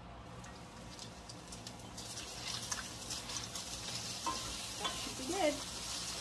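Sliced beef frying at high heat in a pan on a gas hob, browning in its rendered fat. The glass lid comes off, the sizzling grows louder about two seconds in, and a spatula stirs the meat with light clicks and scrapes against the pan.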